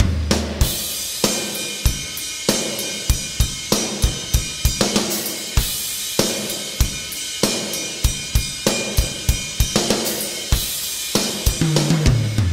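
Isolated rock drum-kit track: a steady groove of kick drum and snare backbeat under a continuous wash of hi-hat and cymbals, ending in a descending tom fill.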